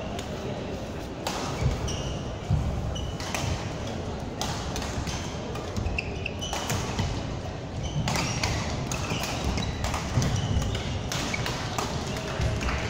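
Badminton rally: sharp racket strikes on the shuttlecock every second or two, with footfalls on the court mat. Under it runs the noise of a large sports hall with other games going on.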